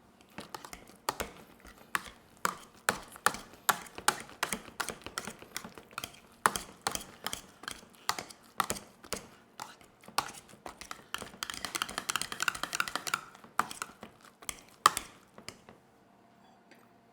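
A kitchen utensil clacking against cookware over and over, about two to three strikes a second, as a dish is stirred or mashed, with a quicker run of strokes near the end.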